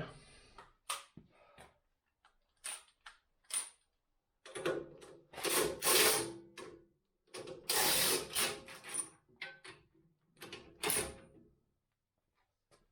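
Impact wrench undoing nuts, run in a string of short bursts with two longer runs of about two seconds in the middle.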